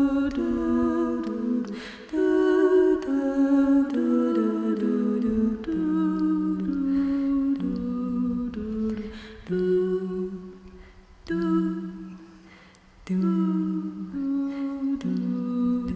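Women's voices singing a cappella, a slow melody of held notes moving step by step in phrases with short breaks for breath. Two voices sound together in harmony.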